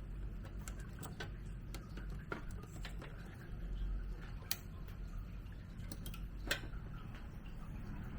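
Scattered light clicks and taps of hands working on desktop computer parts, reconnecting components, over a low steady hum. The clicks come irregularly, about a dozen, with the sharpest near the middle and about two thirds of the way through.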